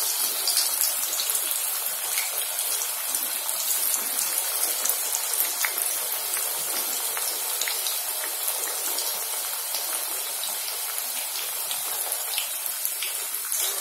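Alu vadi slices (besan-battered colocasia leaf rolls) deep-frying in hot oil in a kadhai: a steady sizzle with fine, constant crackling.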